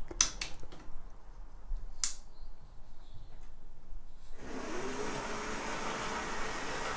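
A few sharp clicks, then about four and a half seconds in an OO gauge model TGV train on DC track pulls away. Its electric motor whirs, rising in pitch as it speeds up, over a steady rumble of wheels on the rails.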